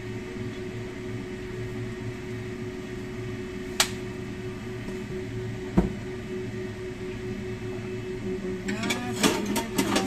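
Cooking oil heating in a frying pan over a gas burner, under a steady kitchen hum; two sharp clicks in the middle, then about nine seconds in the hot oil starts to crackle and spit, growing denser.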